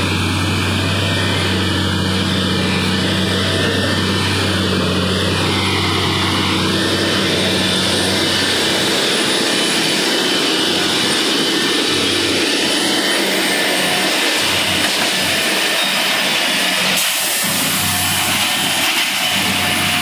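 Track relaying train's engines and machinery running: a loud, steady mechanical drone with a low hum that fades about nine seconds in.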